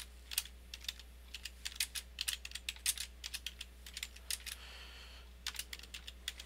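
Computer keyboard typing: a run of quick keystrokes, with a pause of about a second a little past the middle before the typing resumes.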